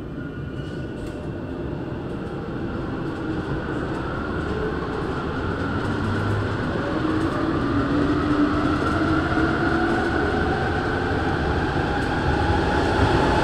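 Alstom NS16 rubber-tyred metro train pulling away and accelerating. The traction-motor whine rises slowly in pitch and the running noise grows steadily louder.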